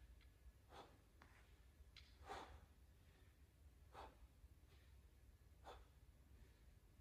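Faint, short exhalations about every second and a half: a person breathing out with each rep of a set of dips.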